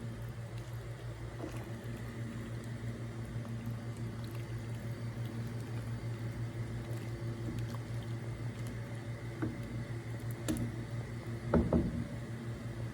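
A pot of sheer khorma, milk with vermicelli, bubbling, over a steady low hum, with a short cluster of knocks near the end.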